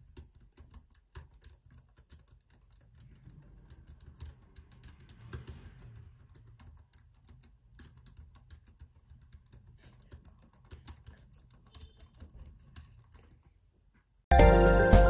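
Typing on a 14-inch MacBook Pro's scissor-switch keyboard: a long, irregular run of quick key clicks. Loud music cuts in suddenly near the end.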